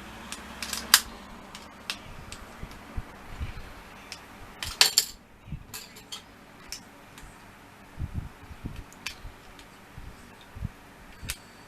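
Hard plastic pieces of an Airfix Quick Build kit clicking and tapping as they are handled and pushed together, with scattered sharp clicks and a louder cluster of clicks about five seconds in.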